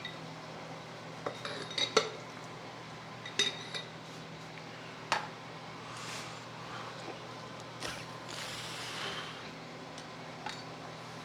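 Metal parts and tools of a King 2.5 shock absorber clinking and knocking together during reassembly, as a handful of sharp, irregular clinks. A brief hiss follows about eight seconds in, over a steady low hum.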